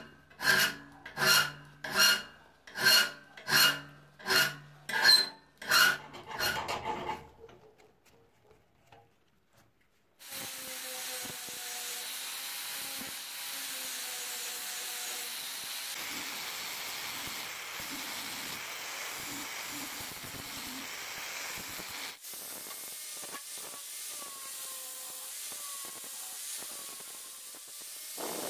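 A flat hand file rasps across the steel jaw of rusty lasting pincers in quick, even strokes, about one and a half a second, then stops. About ten seconds in, an angle grinder starts grinding the steel pincers and runs steadily, its motor whine wavering under the grinding noise.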